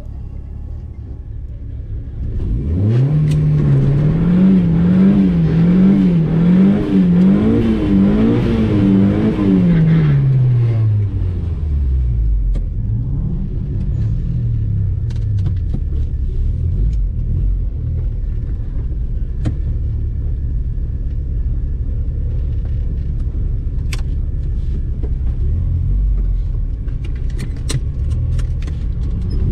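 Turbocharged 1.8T 20-valve four-cylinder engine of a Mk2 Golf GTI revved up and held at high revs, the pitch wavering rapidly for several seconds. It then drops back to a steady idle, swells once briefly, and climbs again near the end, with a few sharp ticks in the last seconds.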